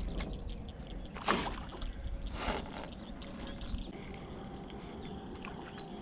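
Small boat on a pond: low rumble and faint water sloshing, with a few light clicks and two brief louder noises about one and two and a half seconds in.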